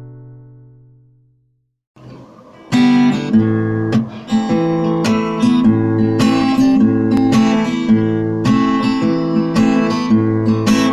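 Background music: the tail of one song dies away, there is a brief gap, and about three seconds in a new guitar-led song starts with loud strummed chords.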